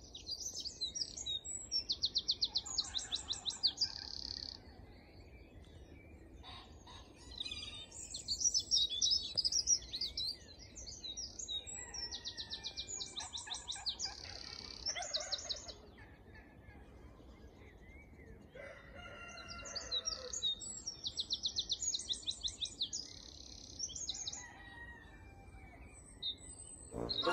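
Songbirds singing in a dawn chorus: one bird repeats a high song of fast trilled phrases every few seconds, while other birds chirp more faintly between them. A lower, drawn-out call comes in about two-thirds of the way through.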